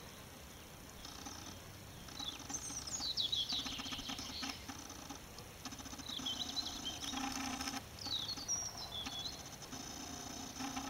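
Small birds calling, short chirps and gliding notes heard several times, over a faint steady low hum.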